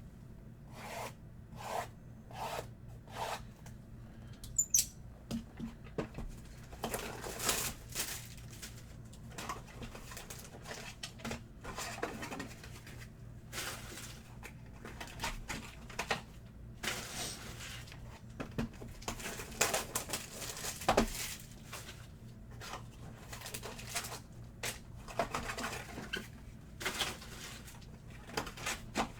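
Trading card boxes and packs being opened and handled by hand: irregular rustling and crinkling of wrappers and cards, with a few sharper clicks.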